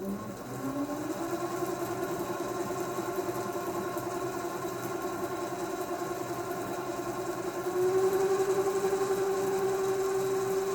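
Sieg C2-400 mini lathe, belt-driven by a 0.37 kW three-phase motor on a variable-frequency drive, spinning up with a rising hum over the first second, then running steadily. About eight seconds in it speeds up a little and gets louder.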